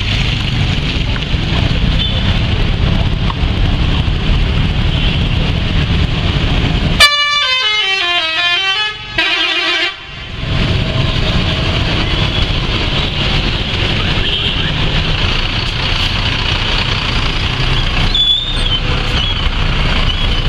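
Bus 'telolet' musical horn playing a quick tune of notes stepping downward for about two seconds, followed by a brief second phrase, about a third of the way in. Steady low vehicle rumble runs under it.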